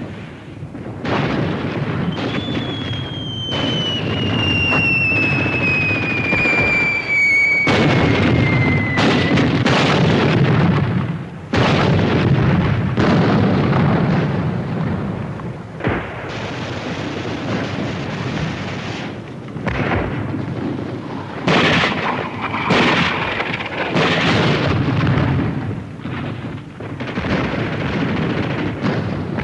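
Battle sound effects: a long falling whistle of an incoming artillery shell, running from about two seconds in to about nine, then a string of shell explosions and gunshots, loudest about eight seconds in.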